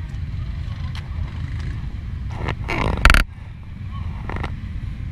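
ATV engine running with a steady low rumble as the machine rides through mud. About three seconds in, a short, loud rushing burst swells and then cuts off suddenly.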